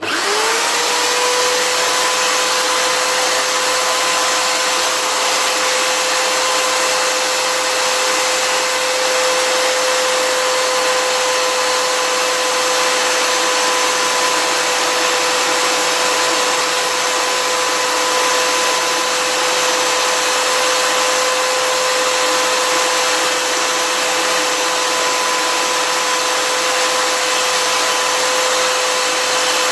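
Electric drill spinning up to speed within the first second, then running at a steady high whine with a lock key pin chucked in it, while a hacksaw blade is held against the spinning pin to cut serrations into it.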